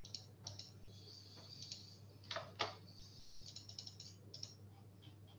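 Faint, irregular clicking of typing on a computer keyboard, in short runs of keystrokes, over a low steady hum.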